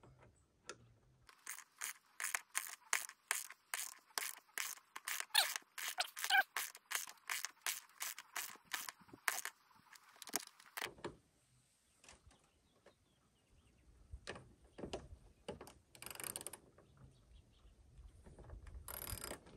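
Socket ratchet clicking in a quick, even rhythm, about three clicks a second for some nine seconds, as it turns a bolt to draw up and set a plus nut (blind rivet nut) in sheet-metal roof. The clicking then stops, and two short scraping rattles follow near the end.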